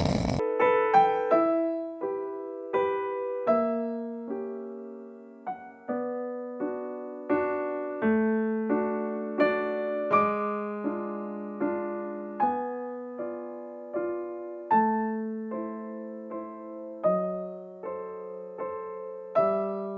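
Background music on a piano-style keyboard: a slow, gentle melody of struck notes and chords, about one or two a second, each fading after it is played.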